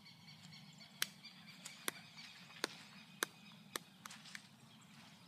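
About seven short, sharp clicks at uneven intervals over a faint, steady outdoor background.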